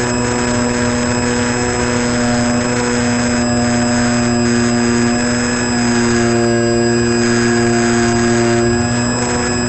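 Model airplane's motor and propeller running at steady throttle, picked up by a camera on board, with wind rushing past. The upper tones shift in pitch about five to six seconds in.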